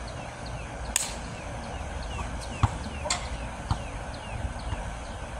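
A basketball bouncing sharply a few times on an outdoor hard court as it is dribbled, the bounces about half a second apart in the middle. Underneath, a bird calls in rapid, repeated short falling chirps.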